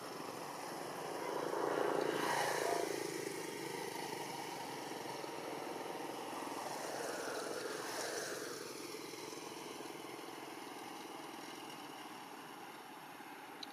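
Motor vehicles passing over a steady outdoor background: one is loudest about two seconds in, and another passes around eight seconds with its engine pitch falling as it goes by.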